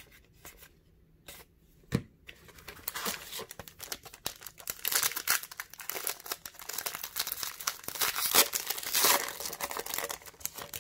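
A few soft taps, then a foil trading-card pack being crinkled and torn open by hand, a dense crackling that starts about two and a half seconds in and runs on.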